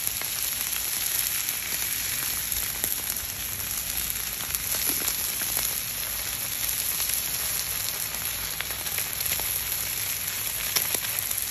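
Beef chuck steak and New York strip steak searing on a flat-top grill: a steady sizzle with scattered small crackles.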